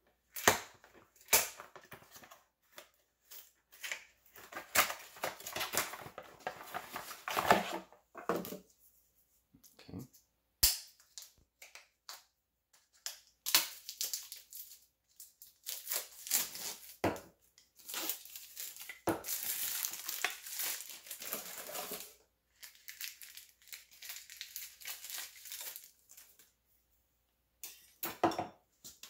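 Plastic wrapping and cardboard packaging crinkling, crunching and tearing in irregular bursts as a new replacement water filter cartridge is unwrapped by hand, with a sharp click about ten seconds in.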